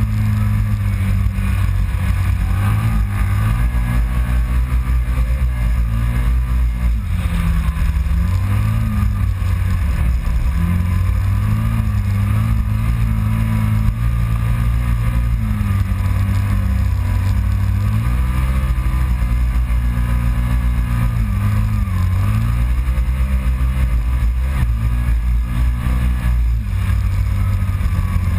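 Kawasaki Teryx side-by-side's V-twin engine running under way, its revs rising and falling over and over with the throttle as it drives across the sand.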